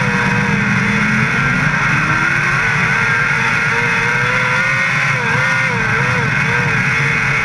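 Non-wing dirt-track race car's engine at racing speed, heard from on board over heavy wind and track noise. The engine note climbs steadily about two seconds in, then dips and wavers a few times near the end as the car comes off and back on the throttle into a turn.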